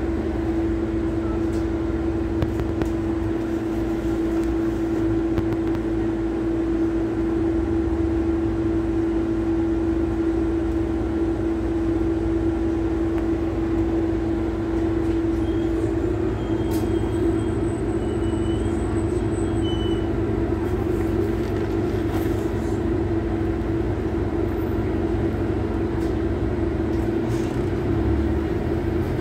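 London double-decker bus heard from inside the upper deck, its engine running with a steady hum.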